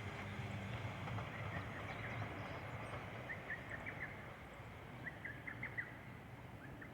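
Faint low rumble of a train slowly dying away, with short bird chirps in quick runs about three and five seconds in.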